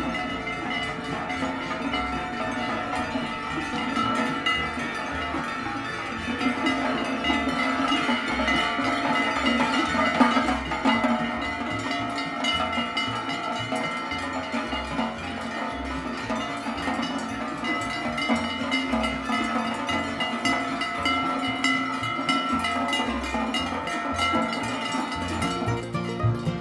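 Many large cowbells clanging together, worn by a herd of Aubrac cattle on the move: overlapping metallic ringing that goes on without a break.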